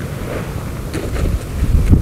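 Wind blowing over the microphone as a strong, uneven low rumble, with a few faint clicks about a second in and near the end.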